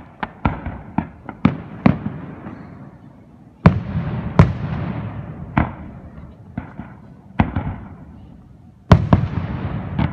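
Fireworks display: aerial shells bursting, first a quick run of smaller sharp bangs, then five heavier booms a second or two apart, each trailing off in a rolling echo.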